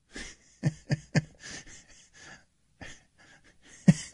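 Laughter: a run of short, breathy laughs with a few sharp voiced bursts about a second in, and the loudest burst near the end.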